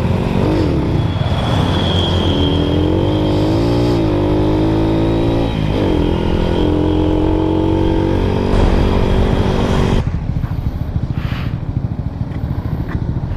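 Motorcycle engine running under way, its pitch rising, dipping briefly and then holding steady as it changes speed. About ten seconds in the sound changes abruptly to a duller, steady rumble.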